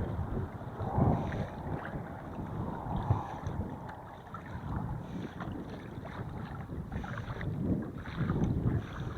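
Strong wind gusting on the microphone, in surges that rise and fall, with water splashing around a kayak on choppy water.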